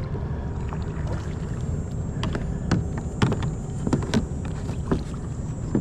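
A kayak being paddled and turned: scattered sharp knocks of the paddle against the hull over a steady low rumble.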